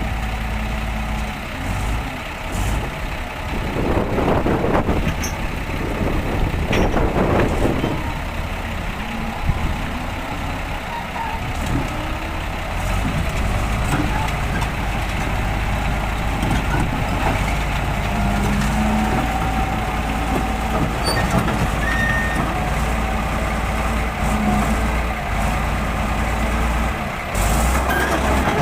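Heavy diesel truck engine running steadily, with two louder surges about four and seven seconds in.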